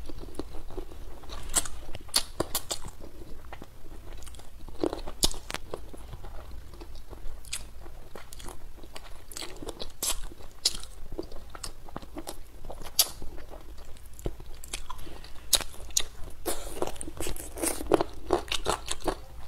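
A person biting and chewing braised pepper chicken feet close to the microphone, with irregular sharp crunches and clicks that come thicker near the end.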